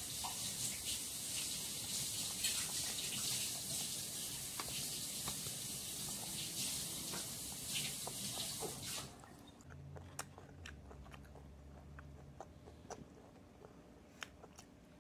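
A small child eating from a plastic bowl with a wooden spoon: faint chewing and light spoon clicks. For about the first nine seconds a steady hiss sits over it, then stops abruptly, leaving only the scattered clicks.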